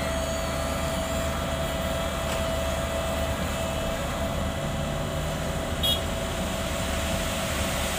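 Sumitomo asphalt paver's diesel engine running steadily with a constant tone over it, laying hot-mix asphalt. A short ringing metallic clink about six seconds in.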